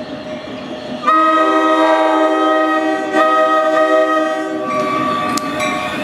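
NJ Transit locomotive's multi-chime air horn sounding two long blasts with a very short gap, starting about a second in, over the steady rumble of the arriving train.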